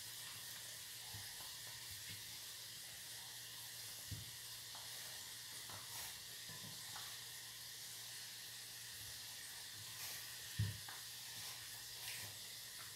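Faint steady hiss with a few soft thumps of hands kneading and folding bread dough on a floured countertop, the loudest thump about ten seconds in.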